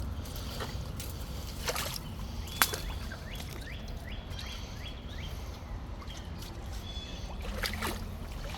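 Wading steps sloshing and splashing through river water, with a few sharp splashes. A bird calls a quick run of short, falling high notes in the middle.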